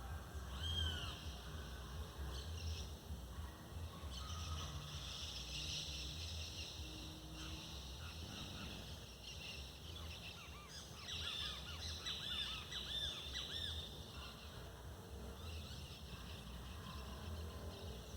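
Several birds calling and singing with short, quick chirps and whistles, thickest a little past the middle, over a low steady rumble.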